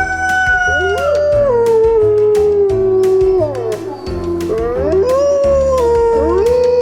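Wolves howling: long, held howls that slide down in pitch, with more than one voice overlapping, over background music with a steady beat.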